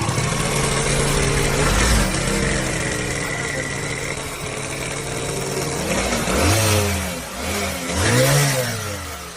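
Motorcycle engine running steadily, then revved up and back down three times in the second half.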